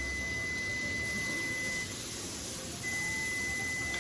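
An electronic beeper sounding one steady high tone: it is held for a few seconds, stops a little under two seconds in, and starts again about a second later. Beneath it runs a steady hiss of food sizzling on the electric griddle.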